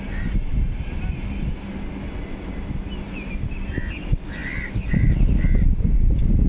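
A crow cawing in a run of four harsh caws about half a second apart in the second half, with one more right at the start. Under it a train rumbles on the tracks, growing louder near the end as the coach draws closer.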